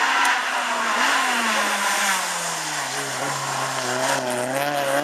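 Rally car engine coming down in pitch as the car slows for a corner. It holds low briefly, then climbs again from about four seconds in as the driver accelerates out.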